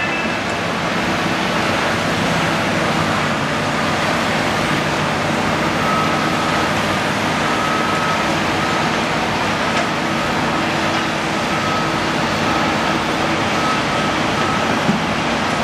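Komatsu PC228 excavator's diesel engine running steadily under work. From about six seconds in, a backup alarm beeps at an even pace, a little more than once a second.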